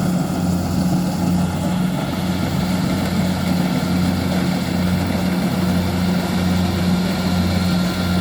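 Kubota rice combine harvester running steadily, a deep even engine drone with a constant hum and machinery noise over it.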